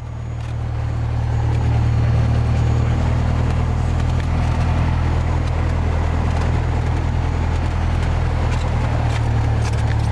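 Light aircraft's piston engine running steadily, heard from inside the cockpit as a loud, even low drone that swells over the first couple of seconds and then holds.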